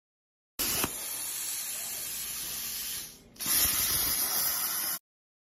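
Steady hiss of a CNC plasma torch cutting metal, in two stretches with a short break about three seconds in.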